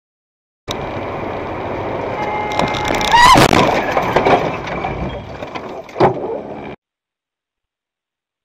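Dashcam audio from inside a moving car in city traffic: steady road and engine noise. About three seconds in comes a loud sudden burst with a rising squeal, and about six seconds in a single sharp knock.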